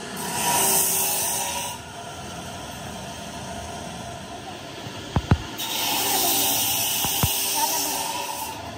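Two long bursts of spray hissing, the first lasting about two seconds, the second about three seconds starting a little past halfway, with a few sharp metallic clicks just before and during the second burst.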